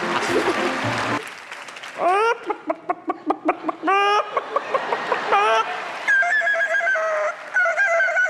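A domestic fowl calling: a run of short squawks that sweep sharply upward in pitch, then longer, held, wavering calls near the end.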